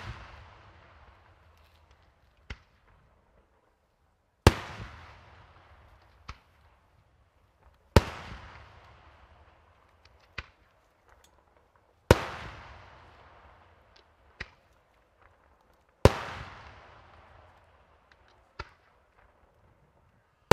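Daytime fireworks: aerial shells bursting with sharp, loud bangs about every four seconds, each trailing off in a rolling echo. A fainter pop comes roughly two seconds before each bang.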